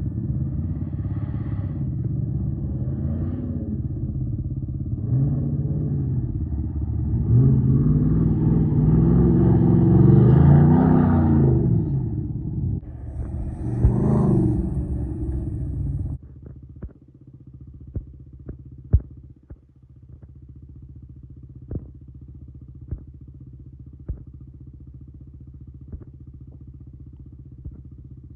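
Motor vehicle engine running, its pitch rising and falling for about the first sixteen seconds, then dropping to a quieter steady low hum with a few faint clicks.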